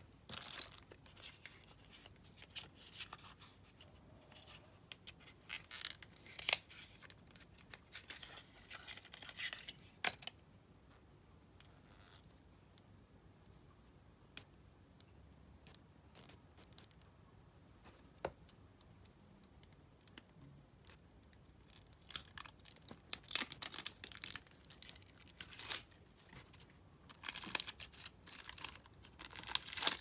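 Plastic packaging crinkling and tearing in handled bursts as cosmetic items are unwrapped, with a few sharp clicks of items being set down. It goes quieter through the middle, then the crinkling turns loud and dense for the last several seconds.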